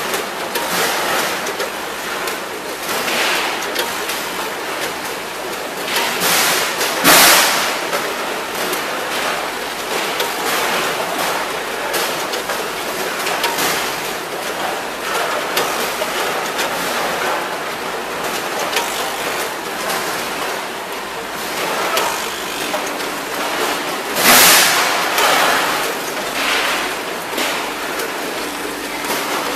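Ten-head combination weigher running with raw shrimp: a steady noisy wash of machinery and shrimp sliding through the hoppers, with scattered clicks of the bucket gates. There are two louder rushes, about seven seconds in and again near twenty-four seconds.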